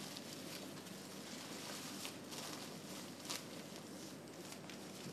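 Faint rustling and soft handling noises as a sterile drape is gathered up and folded on a stainless-steel instrument trolley.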